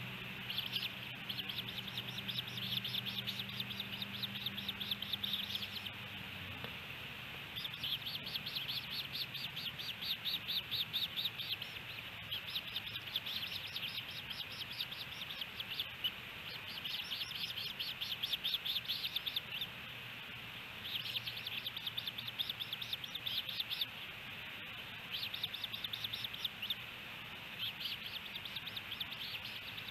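Ospreys calling at the nest: repeated bouts of rapid, high chirps, each run lasting a few seconds with short pauses between.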